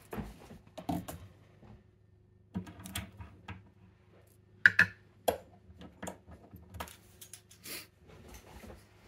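Handling of a picked ASSA Guideline lock cylinder as it is unclamped from a small metal clamp and set down on a pinning tray: scattered clicks, knocks and metallic clinks. The loudest is a sharp ringing clink about four and a half seconds in.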